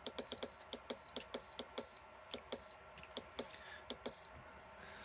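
Buttons on a portable fridge/freezer's digital control panel pressed over and over, each press a click, most followed by a short high electronic beep, about a dozen in quick succession, stopping a little over four seconds in: the set temperature is being lowered to make the freezer colder.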